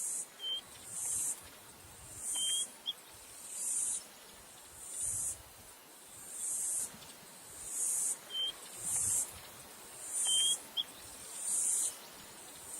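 Insects calling in a repeating pattern: a high buzz that swells and then cuts off, about every second and a half. A bird gives a few short, high whistled notes, in two pairs about six seconds apart.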